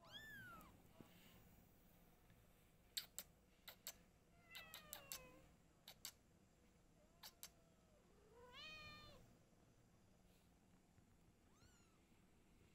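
Cats meowing quietly: a string of short high-pitched mews, most falling in pitch, with a lower call about seven seconds in. Several sharp clicks, mostly in pairs, fall between the mews.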